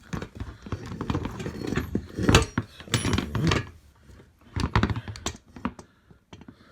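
Irregular small clicks, knocks and clatter of screws, washers and kart frame parts being handled and fitted during assembly, with the loudest knocks a little past two seconds, around three, and again near five.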